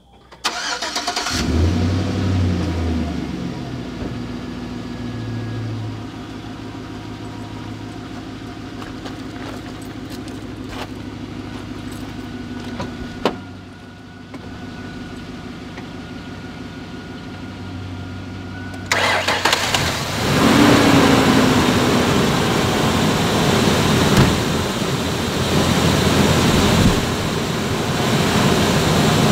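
A 1998 Ford Ranger's 4.0 L OHV V6 engine cranks and starts about a second in, then idles steadily. About 19 seconds in, a louder rushing noise comes in over the engine and stays.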